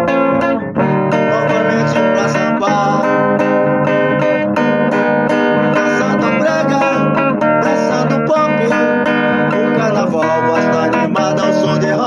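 Instrumental break of a rock song, led by guitar, with no vocals. The music dips briefly just under a second in, then carries on.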